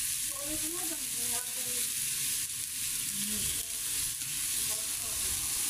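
Chicken pieces sizzling on a hot sac griddle, a steady frying hiss, while metal tongs move the pieces around.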